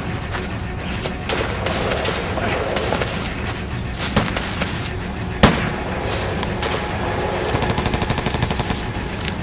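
Gunfire: scattered single shots, one much louder shot about five and a half seconds in, and a rapid automatic burst near the end.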